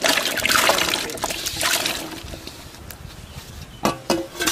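Diced potatoes tipped from a bowl into a metal basin of water, splashing, loudest in the first two seconds. A few sharp clacks follow near the end.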